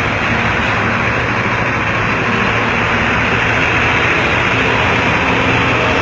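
Bus diesel engine running steadily through a loud aftermarket exhaust, giving a raspy, growling note.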